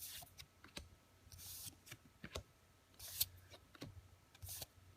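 Magic: The Gathering trading cards being slid off the stack one at a time: faint swishes of card sliding over card about every one and a half seconds, with small clicks in between.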